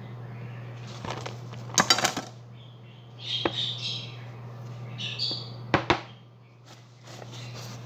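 Kitchen utensils clinking and knocking against a glass baking dish and the counter: a loud cluster about two seconds in, a short rustle, then two sharp clicks near six seconds. A steady low hum runs underneath.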